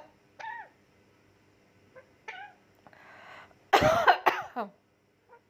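Pet parrot mimicking a person coughing: a couple of short calls, then a loud run of coughs about four seconds in.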